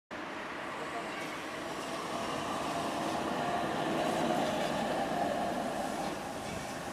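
SSB GT4 articulated tram passing on its track: a steady rumble of wheels on rail that swells as it goes by about four seconds in and eases off near the end.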